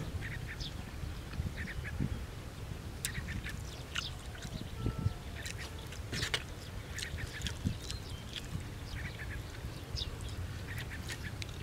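Close-up eating sounds of a man chewing and smacking on a mouthful of rice noodles and fresh vegetables, short wet clicks scattered irregularly, over a steady low rumble of wind on the microphone.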